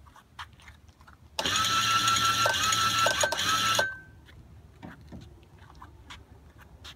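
Newly installed electric anchor windlass motor running for about two and a half seconds, a steady whine over a low hum, as it hauls in anchor rope, then stopping suddenly; a few faint ticks follow.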